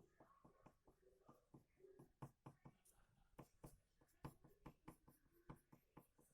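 Faint, quick strokes of a drawing tool on paper, a short scratch two or three times a second, irregular, as an outline is drawn.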